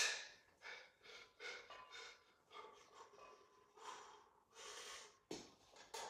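A weightlifter breathing hard through barbell bench press reps: a string of short, forceful breaths, the loudest and sharpest right at the start.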